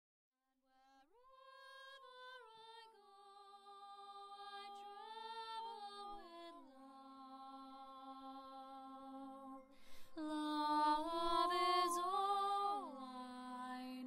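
A woman singing slow, wordless held notes that glide down in steps, unaccompanied apart from a quiet steady held tone beneath. The sound begins from silence and grows louder about ten seconds in.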